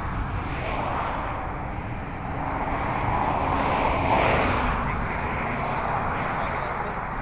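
Passing traffic on a highway, its tyre and engine noise swelling as a car goes by close about four seconds in, then fading. A steady low rumble lies underneath.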